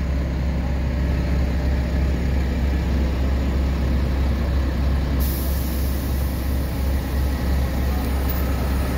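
Large mobile crane's diesel engine running steadily, a low drone. A high hiss joins about five seconds in and stops near the end.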